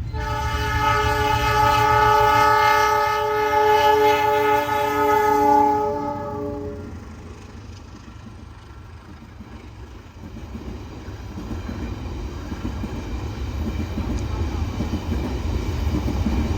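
Diesel locomotive's multi-tone air horn sounding one long blast of about seven seconds, followed by the low rumble of the train running, growing louder toward the end.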